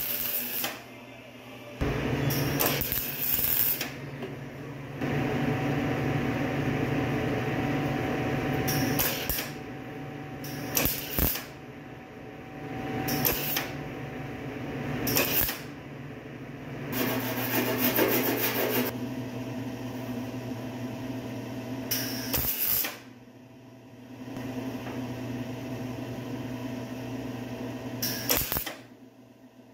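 MIG welder laying short welds on a sheet-metal fender patch panel: a crackling, buzzing arc in runs of a few seconds with brief pauses between them.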